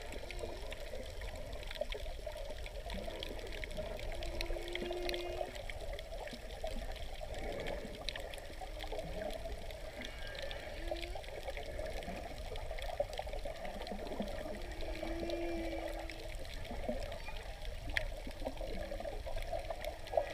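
Humpback whale song heard underwater: faint moaning notes, with a held low note about four seconds in and again about fifteen seconds in, and shorter calls between. Under it runs a steady rushing hiss of water with faint scattered clicks.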